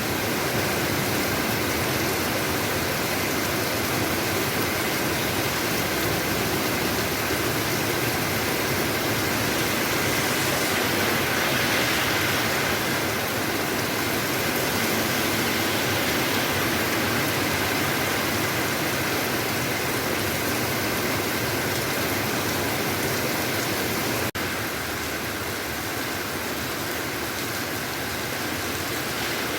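Steady rushing outdoor street noise, an even hiss with traffic in it, with an edit about 24 seconds in after which it goes on a little quieter.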